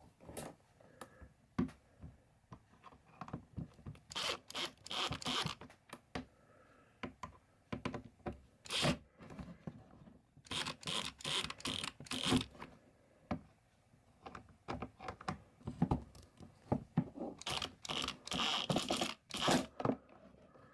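Plastic glove box handle and latch parts being handled and pushed into place by hand: scattered clicks and short scraping rasps, coming in three busier spells.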